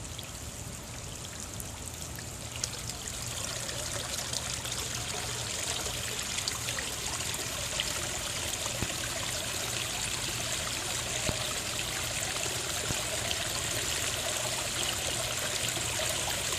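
Garden pond waterfall starting up after being shut down: water begins trickling and pouring, and the flow builds gradually from a couple of seconds in.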